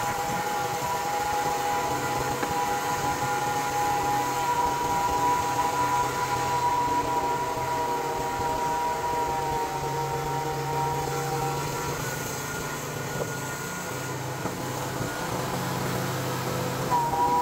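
Portable bandsaw sawmill running with a steady whine while sawing a white oak log. About twelve seconds in, the tone changes and gets slightly quieter, then the full whine comes back near the end.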